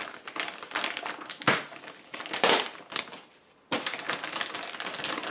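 Clear plastic bag crinkling and rustling as it is handled, with louder crumples about a second and a half and two and a half seconds in and a short quiet gap a little after three seconds.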